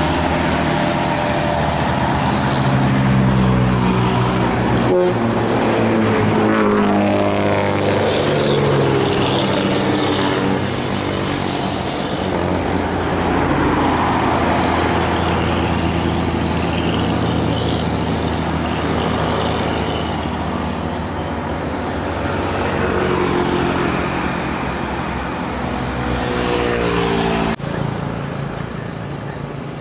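Large diesel bus engines running hard as the buses pull away, the engine pitch climbing and dropping with each gear change. The sound breaks off abruptly near the end.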